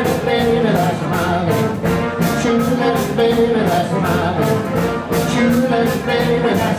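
Live rock and roll band playing a fast number: electric and acoustic guitars with upright bass over a steady driving beat.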